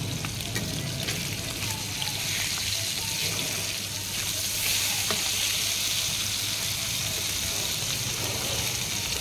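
Masala-coated fish frying in hot oil in a pan: a steady sizzle. A metal spatula turns a piece over, and the sizzle swells about halfway through.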